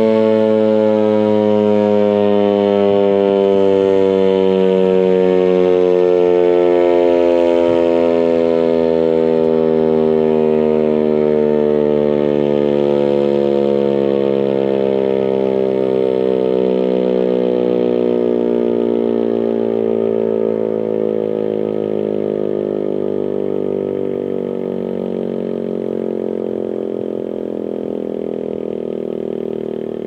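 American Signal T-135 AC/DC electromechanical warning siren winding down at the end of its test sound. Its loud chord-like tone slides slowly and steadily lower in pitch and fades gradually over the later part.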